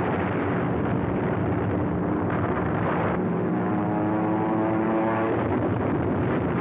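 Aircraft engines on an old film soundtrack: a steady, dense roar, with a pitched engine whine rising slightly from about three to five seconds in, like a plane diving.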